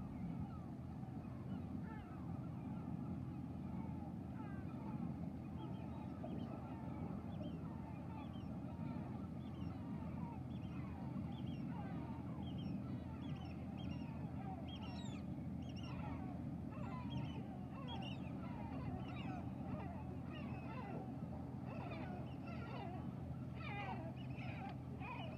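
A flock of birds calling with many short, overlapping chirps, busier in the second half, over a steady low rumble.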